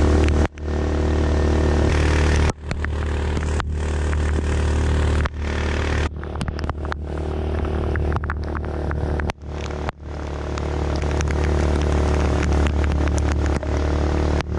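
Small boat motor on a kayak running steadily at cruising speed, with heavy rain hissing on the river and the wake rushing by. The sound dips out briefly several times.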